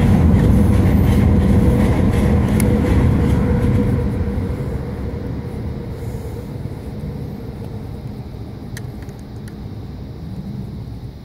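Loud low rumble that fades away steadily over several seconds, with a few small clicks near the end.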